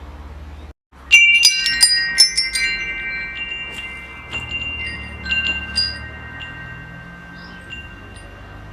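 Wind chimes struck in a quick flurry about a second in, several clear tones ringing on together and slowly fading, followed by a few scattered single strikes, over a low steady hum.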